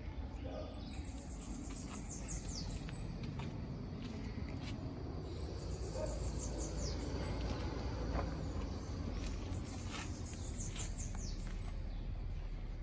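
Outdoor ambience: runs of high, quick, falling chirps, about one run every four seconds, over a steady low rumble.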